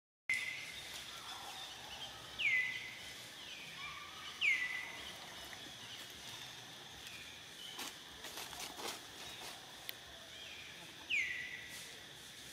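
Outdoor animal sounds: short high-pitched calls that slide sharply downward, heard three times (about two, four and eleven seconds in), over a steady high hiss, with a few faint clicks in the middle.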